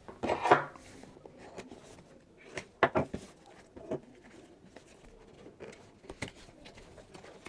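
Small cardboard box of a Xiaomi Mi home security camera being handled on a wooden table: a few short taps and scrapes of the packaging against the tabletop, the sharpest about three seconds in, with quiet room tone between.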